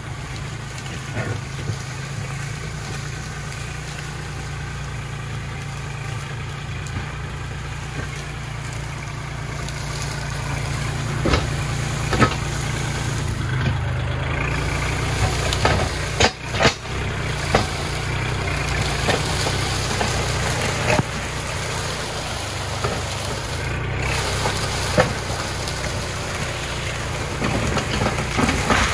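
Kubota L4018 tractor's diesel engine running steadily as the tractor pushes through brush, getting louder about a third of the way in, with several sharp cracks and knocks in the middle.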